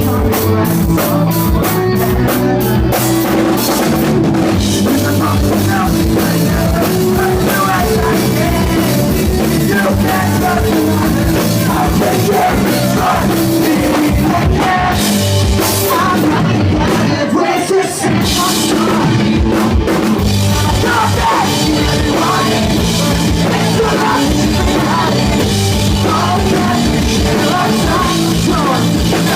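Live pop-punk band playing loud: drum kit, guitars and singing, with a brief break about two-thirds of the way through.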